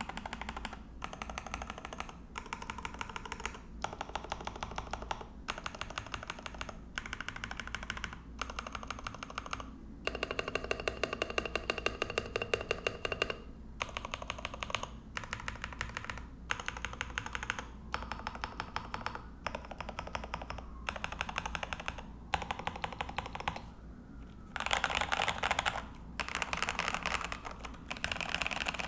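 Typing on a RAMA U80-A mechanical keyboard with a brass plate, PBT keycaps and lubed, filmed Epsilon switches, without the extra silicone dampener: short runs of rapid keystrokes with brief pauses between them. A longer, louder flurry comes about ten seconds in, and louder runs come near the end.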